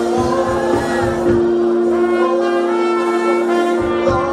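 Live gospel praise music: a band holds a sustained chord over a drum beat while the congregation sings along.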